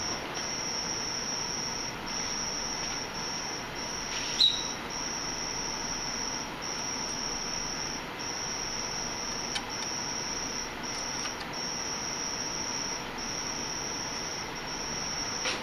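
A steady high-pitched whine, broken by brief gaps at irregular intervals, over an even background hiss. A single short clink sounds about four seconds in.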